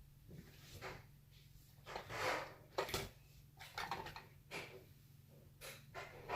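Soft handling noises: rustling and light knocks as squishy toys are picked up and moved about, a few short bursts, the loudest about two and three seconds in, over a faint steady hum.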